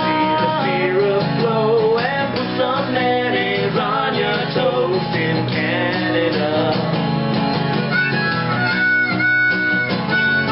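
Acoustic guitar strummed steadily while two men sing. A harmonica comes in near the end, playing held high notes over the guitar.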